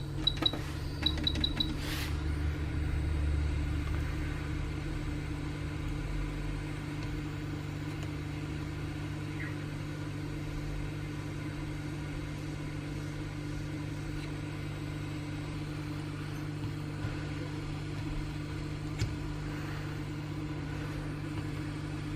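Hot air gun running steadily, its fan and heater making an even hum while heat is applied to loosen the charging port's adhesive. A string of short high beeps sounds in the first second or so.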